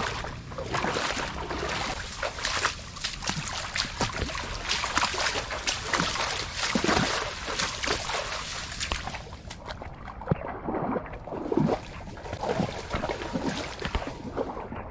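Water splashing and sloshing in an irregular run of bursts, lighter and duller from about ten seconds in.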